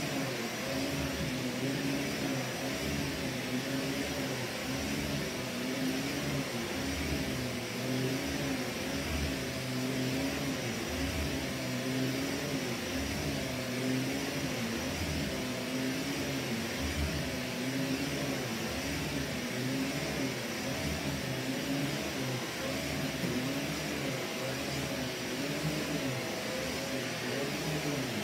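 Vax Commercial VCU-03C upright vacuum cleaner running on carpet, a steady motor whine whose pitch wavers up and down about once a second as the head is pushed and pulled across the pile.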